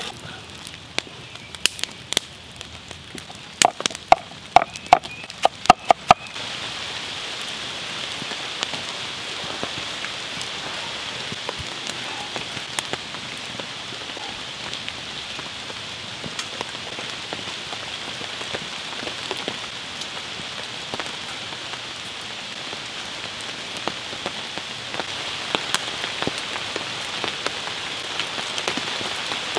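A wooden spoon clacks against the pot a dozen or so times over the first six seconds as the stew is stirred. Then a steady patter of rain sets in abruptly and keeps on.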